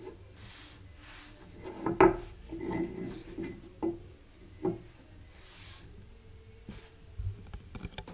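Small metal bullnose plane handled on a wooden benchtop: a series of knocks and clunks with short scrapes as it is turned over and set down, the loudest about two seconds in, then lighter taps near the end.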